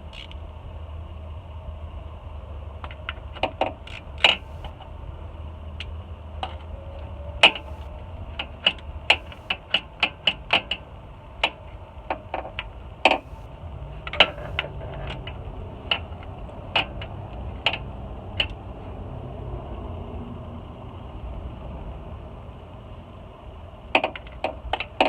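Sharp metallic clicks and clinks of hand tools being worked, in short irregular runs with pauses, over a steady low hum.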